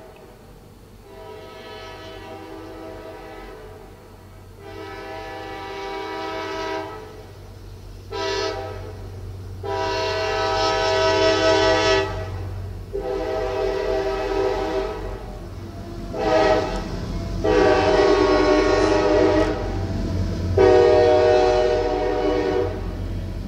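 CSX freight locomotive's air horn sounding a series of blasts for a grade crossing: long blasts broken by short ones, growing louder as the train approaches. The low rumble of the locomotive builds underneath in the last seconds as it reaches the crossing.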